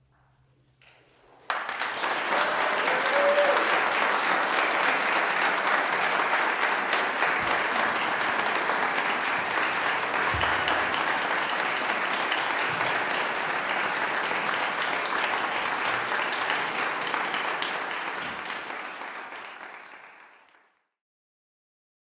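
Audience applauding, starting suddenly after a moment of near silence, holding steady, then fading out near the end.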